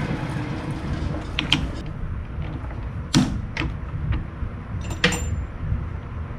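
Several sharp metallic clicks and knocks, the loudest about three seconds in and another about five seconds in, from lathe parts and tools being handled, over a low steady hum.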